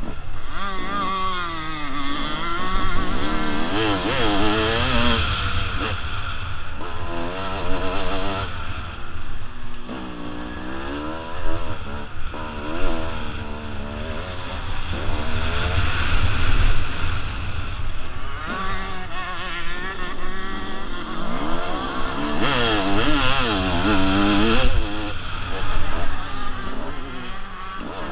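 1996 Kawasaki KX250 two-stroke single-cylinder engine being ridden hard on a motocross track, revving up and dropping back again and again as it shifts and the throttle opens and closes.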